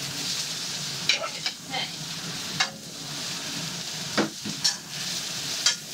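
Spiralized vegetables sizzling in a hot wok, with a metal spatula scraping and clicking against the pan several times as they are stirred.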